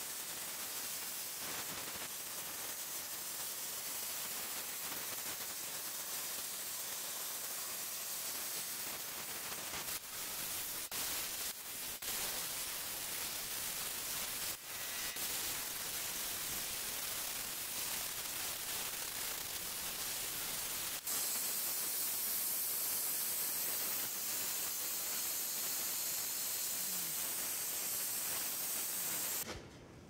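Hypertherm Powermax 45 XP plasma cutter on a CNC table cutting steel plate: a steady air-and-arc hiss with a few brief breaks around the middle, turning brighter and harsher about two-thirds of the way in.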